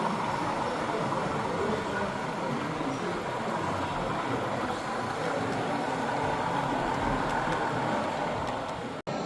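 Steady background din of a model railway exhibition hall, with model trains running on the layout. The sound cuts out for an instant near the end.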